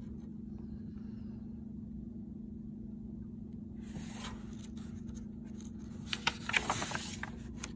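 Paper picture-book pages handled and turned: a hand sliding over and rustling the paper, with a few small ticks, starting about halfway through. A steady low hum runs underneath.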